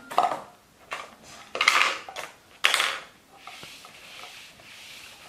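Small plastic bottles, tubes and plastic wrapping handled by a baby monkey on a wooden floor: four short clattering, crinkling bursts in the first three seconds, then a soft steady rubbing sound.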